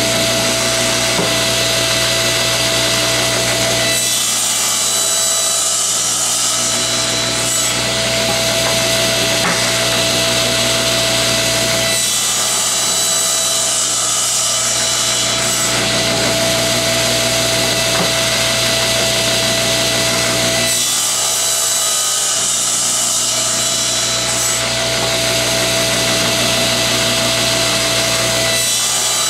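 Table saw running, its blade cutting maple in several passes a few seconds long. Between the passes the saw hums steadily with no load.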